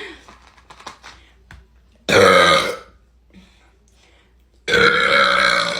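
A young woman burping loudly twice: a short burp about two seconds in and a longer, drawn-out one near the end. The burps come up from the Sprite she has just drunk for the Sprite challenge.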